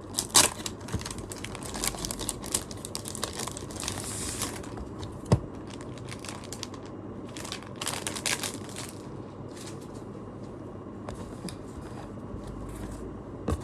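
Packaging crinkling and rustling as a merchandise item is unwrapped by hand, with a sharp snap about five seconds in. The handling thins out in the second half.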